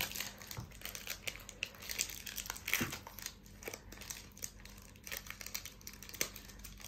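Plastic chocolate-bar wrapper crinkling as it is pulled and peeled open by hand, in a run of irregular crackles.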